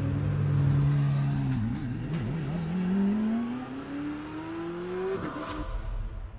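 Czinger 21C's twin-turbo V8 running steadily, then wavering briefly before its pitch climbs for about three seconds as the car accelerates. Near the end it drops and fades.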